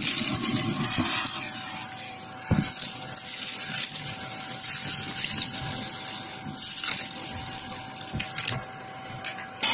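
Shark vacuum running with its nozzle in a pile of fluff, popcorn kernels and craft bits: a steady motor whine over rushing air, with the bits crackling as they are drawn up. There is a sharp knock about two and a half seconds in.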